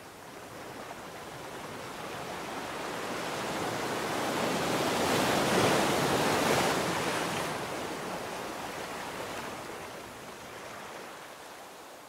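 Ocean surf: one long wash of a wave that builds to a peak about halfway through and then ebbs away.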